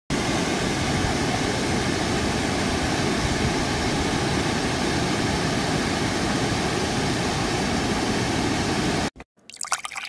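Small waterfall pouring over rocks into a pool: a steady rush of water that cuts off suddenly about nine seconds in.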